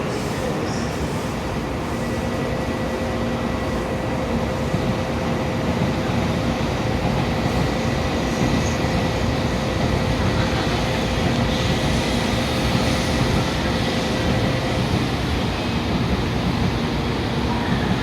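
A Tokaido Shinkansen train running along the station platform with a steady, loud rolling rush. Faint steady electrical tones ride over the noise and stop about three-quarters of the way through.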